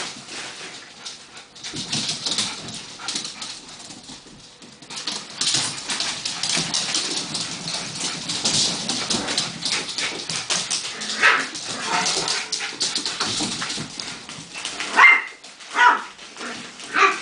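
Miniature schnauzer puppies yipping and whimpering in short, sharp calls, one about two-thirds of the way in and three close together near the end, over the crackling rustle of a crisp packet being tugged about.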